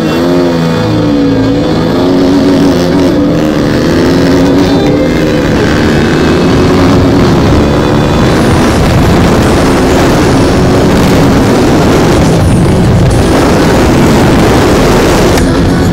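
Motorcycle engine accelerating hard, its pitch dipping and then climbing over the first few seconds. As speed builds, a loud rush of wind noise covers the engine.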